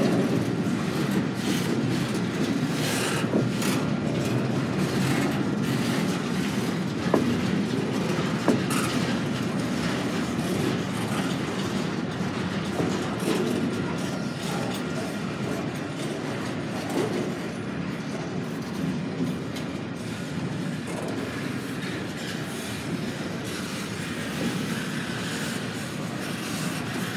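Freight train cars rolling past, their steel wheels clicking over rail joints, with a few brief wheel squeals. The rumble eases slightly toward the end.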